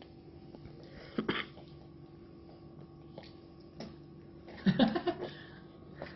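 A few short wordless voice sounds: a brief one about a second in and a longer pitched one around five seconds, over a faint steady hum.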